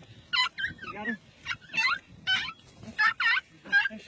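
Dog whining and yelping in a rapid run of short, wavering high cries, about two a second: the distress of a dog trapped under rubble as it is dug out.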